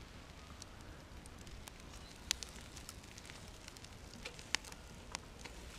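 Wood fire burning in a steel fire pit, crackling with scattered sharp pops; the loudest pops come about two seconds in and again about four and a half seconds in.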